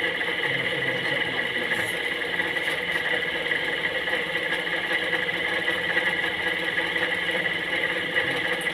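Steady machine hum with a high whine, even and unchanging in level, like a small electric motor running.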